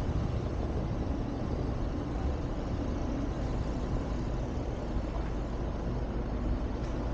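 Car driving over a cobblestone street: a steady low rumble of engine and tyres.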